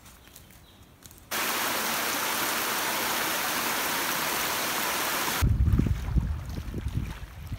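Rushing water of a small forest waterfall, a steady loud noise that starts abruptly about a second in and stops suddenly about four seconds later. Then irregular low gusts of wind buffet the microphone.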